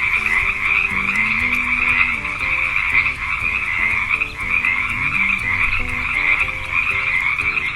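Frogs croaking in a continuous, dense chorus.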